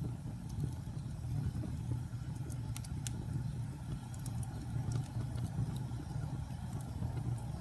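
Wood fire burning with a steady low rumble and scattered sharp crackles and pops, a couple of them close together about three seconds in.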